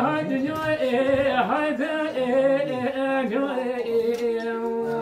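A man singing an unaccompanied Kurdish song, one voice moving through a bending, ornamented melody with no instruments. Near the end it settles into a long held note.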